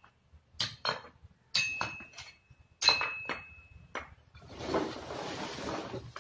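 Hard objects clinking and knocking as things are picked up and set down on a stone floor, one of the knocks leaving a thin ringing tone for a couple of seconds. In the last seconds, a steady rustling, scraping noise as a woven sack is shifted across the floor.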